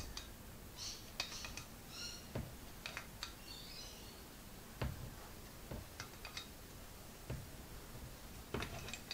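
Scattered light metal clicks and taps from a shifting spanner working a small nut on a Zenith carburettor, with a few short bird chirps in the background.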